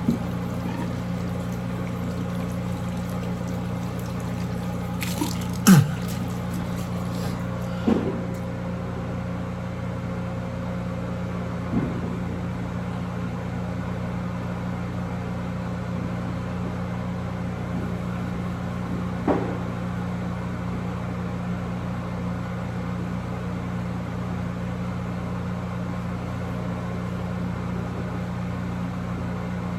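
A steady low mechanical hum with two fixed tones, broken by a few single knocks and clicks, the sharpest about six seconds in.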